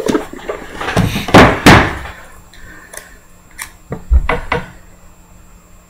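Rustling and tearing of packaging as a trading-card box is worked open by hand, loudest a little over a second in, followed by a few short knocks and taps of handling on the wooden table.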